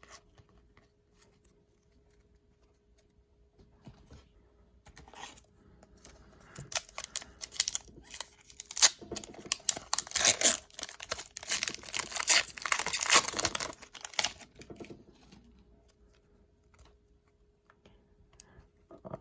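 A hockey card pack wrapper is torn open and crinkled in the hands. A dense run of crackling and tearing starts about six seconds in and stops after roughly nine seconds.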